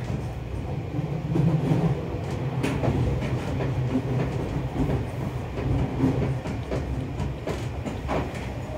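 Interior running noise of a Seibu 30000 series electric train: a steady low rumble of wheels on rail with a few sharp clicks from rail joints.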